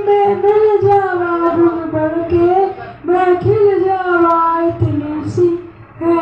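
A high voice singing a slow melody in long, held notes that slide between pitches, with low thumps underneath.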